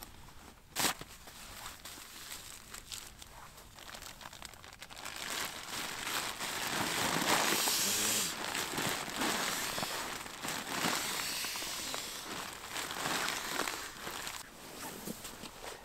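Crinkling, rustling fabric and gear as someone shifts around and settles in inside a small tent, with a sharp click about a second in and the rustling growing loudest in the middle.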